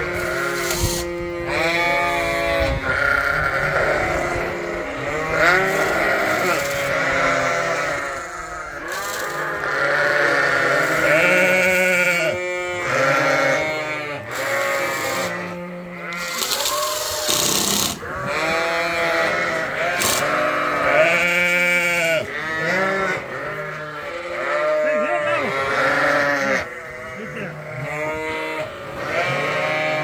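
A flock of sheep, ewes and lambs, bleating continuously, many calls overlapping, some high and some low.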